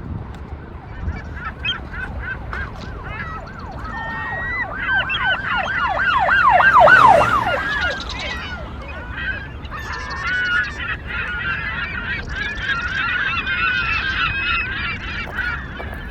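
A flock of birds calling: many short, repeated calls throughout, with a fast run of them loudest about halfway through.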